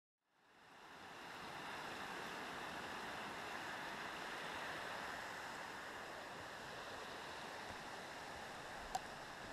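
Steady rush of a rocky mountain stream running over small rapids, fading in after a moment of silence. A single sharp click near the end.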